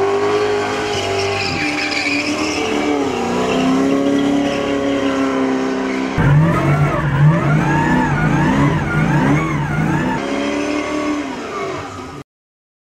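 Toyota GT86 drift car sliding on a wet skid pad, its engine revving up and down as the throttle is worked, with tyre noise. After a cut about six seconds in, the revs rise and fall quickly several times; the sound stops abruptly just before the end.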